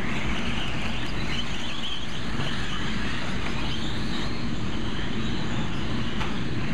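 A pack of electric 1/10-scale off-road RC buggies racing off the start on a dirt track: a steady mass of motor whine and tyre noise, with high whines sliding up and down in pitch as the cars speed up and brake.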